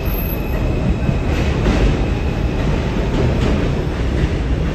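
New York City subway train pulling out along an elevated station's tracks: steady running noise of steel wheels on the rails, with light clickety-clack over the rail joints.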